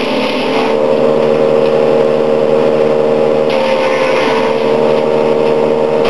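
Wood chipper's petrol engine running at a steady speed, with a rushing hiss over it that eases about a second in and picks up again just past halfway.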